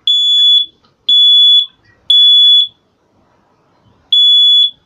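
First Alert P900 photoelectric smoke alarm sounding its test alarm: loud, high-pitched beeps in the temporal-three pattern, three beeps about a second apart, a pause, then the next group beginning near the end. The sound is set off by holding down the test button.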